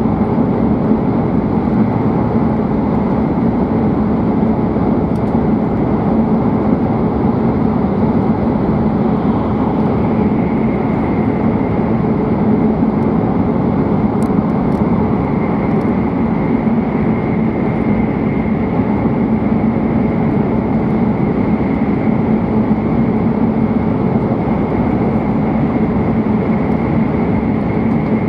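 Steady running noise inside a W7-series Shinkansen car at speed: a dense, even rumble with a steady low hum, and a faint high whine that comes up about ten seconds in.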